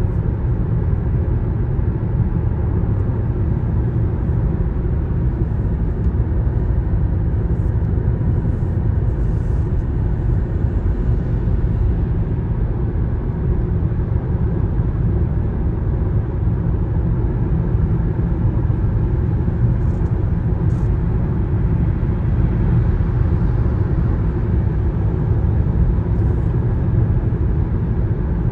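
Steady road noise inside a car cruising on a motorway: a constant low rumble of tyres and engine, heard through the cabin.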